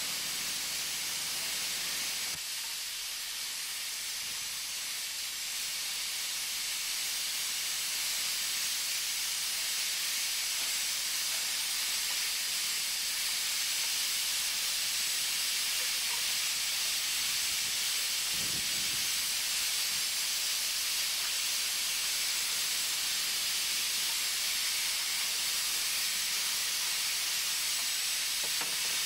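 Steady hiss of escaping steam from Mallet steam locomotive 403 standing under pressure.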